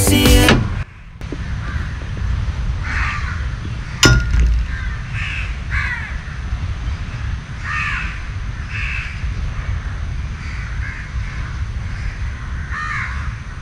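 Crows cawing repeatedly over a steady low rumble, after background music cuts off about half a second in; a single sharp knock about four seconds in.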